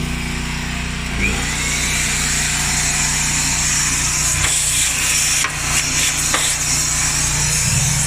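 A portable generator engine and a shop vac running steadily together, the vac vacuuming dust out of a dryer cabinet.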